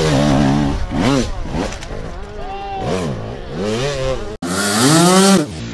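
Enduro dirt bike engine revving up and down over and over as the rider works the throttle. It cuts off sharply about four seconds in, then comes back with a loud rising rev.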